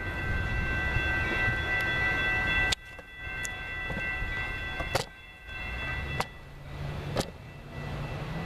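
Passenger train passing close: a low rumble with several steady high tones that cut off abruptly about three seconds in. After that comes a quieter rumble, broken by three sharp clicks.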